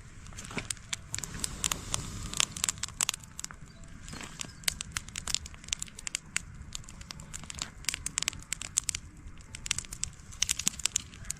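Dry grass kindling crackling as a wood fire is started in a makeshift stove, with many quick sharp snaps throughout.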